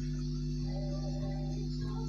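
Background music, a few soft held notes, over a steady low hum.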